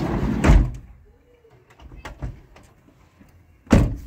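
Pressure-washer jet spraying into a car's door jamb for under a second, then a couple of light knocks and the car door slammed shut once near the end.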